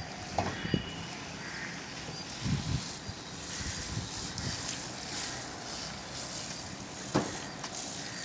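Water spraying onto a freshly cast concrete slab for curing: a steady hiss that grows stronger about three seconds in, with a few low knocks.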